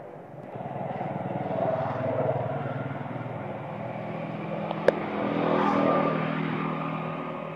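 A motor vehicle's engine running, with a steady low hum that grows louder about a second in and again around five to six seconds, as if passing. A single sharp click about five seconds in.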